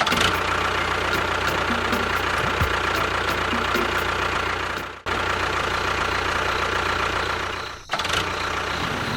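A small engine or motor running steadily, cut off briefly twice, about five and about eight seconds in.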